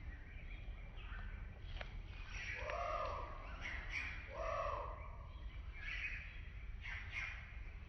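Wild birds calling, with scattered short chirps and two louder, arched calls about three and four and a half seconds in.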